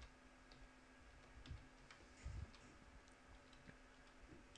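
Near silence with a few faint, scattered computer keyboard key clicks.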